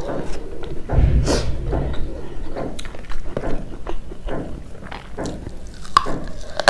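Close-miked chewing and wet mouth sounds of eating rice with buffalo meat curry, with many small clicks. A dull low thump comes about a second in.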